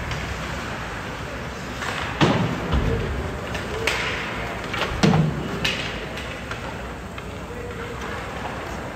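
Ice hockey play in a rink: a handful of sharp clacks and thuds from sticks, puck and boards, bunched between about two and six seconds in, over steady rink noise.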